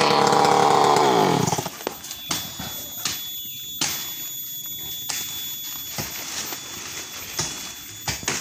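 Stihl 070 two-stroke chainsaw running at high revs, then let off about a second in, its pitch falling as the engine winds down to a stop. Afterwards only scattered light clicks and knocks.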